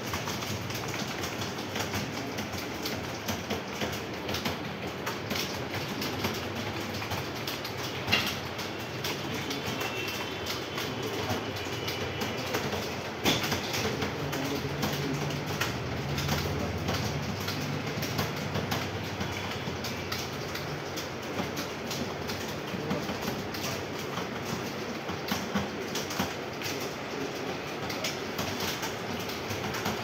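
Many computer keyboards being typed on at once: a dense, continuous clatter of key clicks from a roomful of typists, with a few sharper keystrokes standing out.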